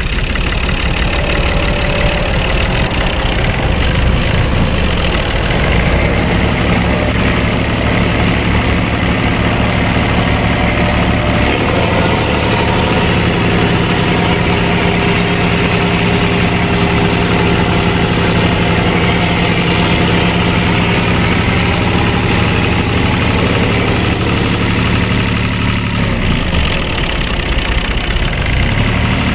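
Tractor engine sound idling steadily, its note shifting a few times.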